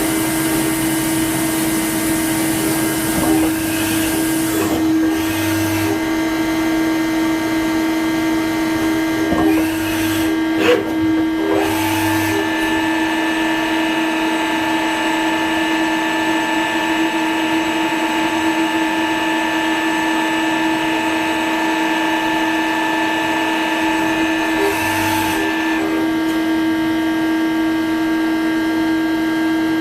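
Spinner TC-65 CNC lathe running with a steady machine hum. About twelve seconds in, a higher whine starts with a short rise and holds steady until it stops about twenty-six seconds in, with a few short clicks around it.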